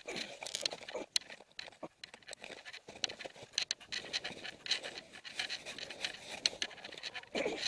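Panting breaths, a run of short, irregular noisy breaths.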